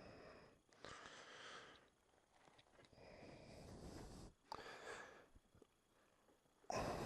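Near silence with a few faint breaths, each about a second long.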